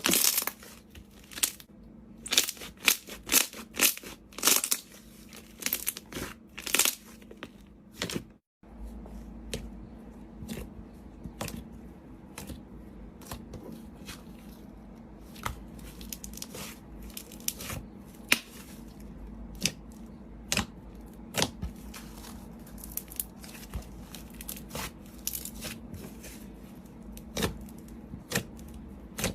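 Slime being handled, giving sharp crackles and pops, several a second, for the first eight seconds or so. After a short break the clicks and pops come sparser and softer, over a faint steady hum.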